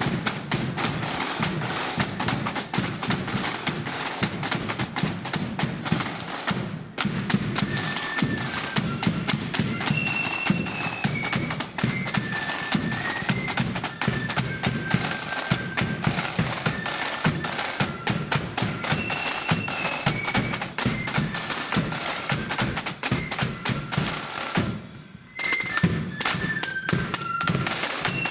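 Marching flute band: snare drums rattling rapid rolls over a bass drum, with the flutes coming in on a melody about eight seconds in. The playing breaks off briefly near the end, then the drums and flutes resume.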